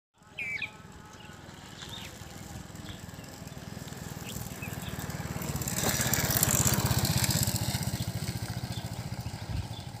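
A small engine running with a fast, even beat, growing louder toward the middle and then fading. Birds chirp a few times, most clearly right at the start.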